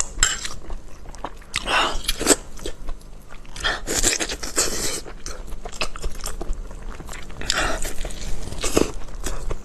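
A person chewing and biting food close to the microphone: irregular wet clicks and crunching bursts of mouth sounds.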